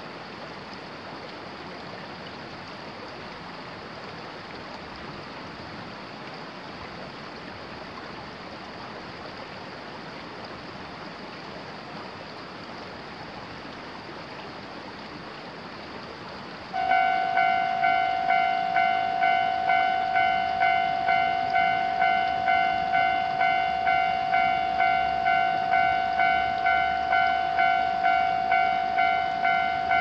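A steady rushing background, then about 17 seconds in a Japanese railway level-crossing alarm starts ringing: a bright electronic bell tone struck about one and a half times a second, the warning that a train is approaching the crossing.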